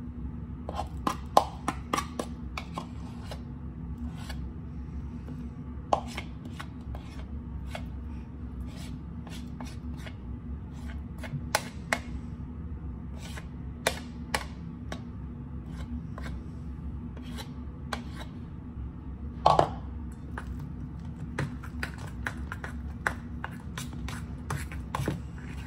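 Hands mixing sticky sourdough starter in a stainless steel bowl: irregular clicks and scrapes of fingers and a plastic bowl against the metal, with a louder scrape a little before the end, over a steady low hum.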